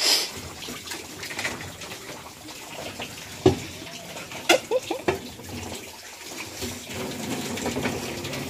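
Water running from a tap over a sink while a plate is rinsed under it, with a few sharp knocks of dishes around the middle.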